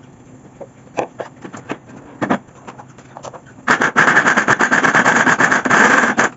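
A spatula scraping and tapping against a bowl and plastic blender jar as wine-soaked dried fruit is spooned in, then a Mondial Turbo blender switches on about two-thirds of the way in and runs loud, grinding through the thick, heavy fruit-and-wine mixture.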